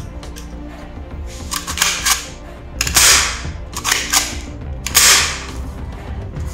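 Plastic toy pistol's mechanism being worked by hand: several short clicks and two louder rasping racks of its pump slide about two seconds apart, over background music.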